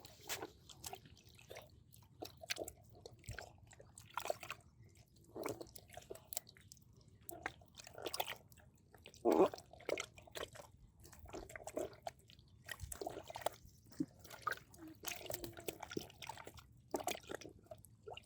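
Hands working in wet mud and shallow water: irregular squelches, slaps and drips, many a second and never steady.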